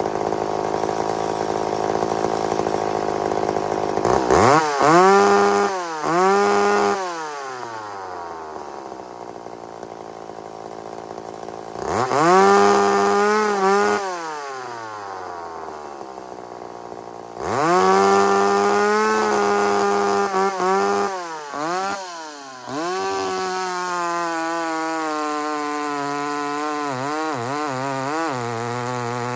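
McCulloch SP81 two-stroke chainsaw idling, then revved hard and dropped back to idle four or five times, the engine pitch rising sharply and falling away each time, as when checking a carburettor tune. Near the end it settles into a steadier run with a wavering pitch as the chain cuts into a big log under load.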